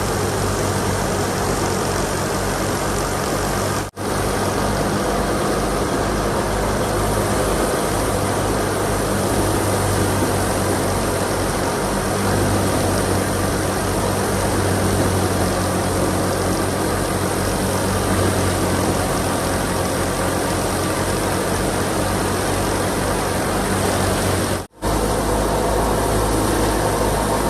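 Fiat 480 tractor's diesel engine running steadily under load as it drives a wheat thresher, a constant low engine hum under the dense rushing clatter of the threshing drum. The sound drops out for an instant twice, about four seconds in and near the end.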